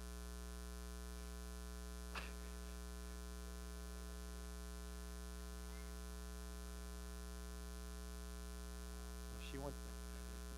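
Steady electrical mains hum with a buzzy stack of overtones. A faint brief sound about two seconds in, and a faint voice near the end.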